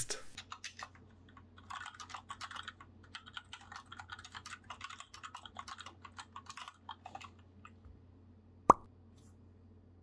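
Typing on a mechanical keyboard fitted with rubber O-rings under the keycaps: a quiet, rapid run of key clacks that stops about seven seconds in. A single sharp pop follows near the end.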